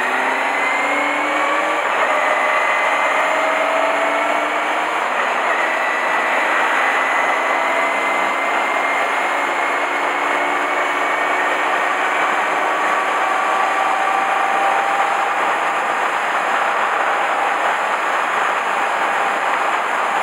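Honda Hornet 250's inline-four engine pulling under way, its pitch rising over the first few seconds and then holding steady with a slow climb, under heavy wind and road noise.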